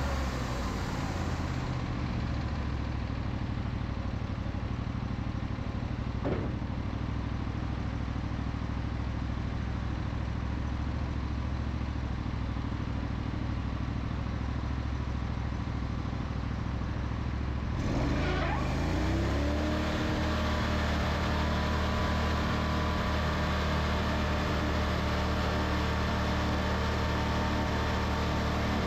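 Wood-Mizer LT40 band sawmill running steadily, with a single knock about six seconds in. Around eighteen seconds in there is a short rush of noise, and the machine's note shifts and settles at a new steady pitch.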